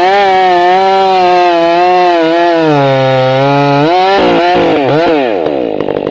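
Stihl chainsaw running at full throttle through a log. The engine pitch sags under load partway through, picks up again as the cut finishes, then drops away as the throttle is released near the end.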